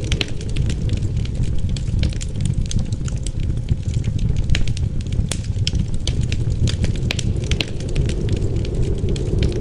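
Wood fire in a fireplace crackling, with many irregular sharp pops over a steady low rush of wind.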